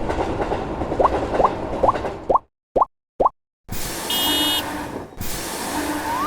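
Cartoon sound effects: train running noise with quick rising plops over it, cutting off about two and a half seconds in. Two lone plops follow, then two bursts of hiss, the first with a brief high ring.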